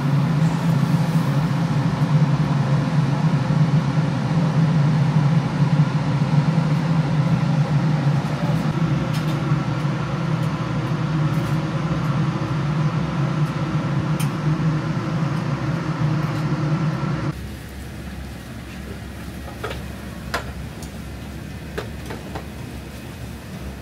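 Steady, loud drone of a kitchen exhaust hood fan over a charcoal eel grill. About 17 seconds in it cuts off suddenly, leaving quieter scattered light clicks and knocks of dishes.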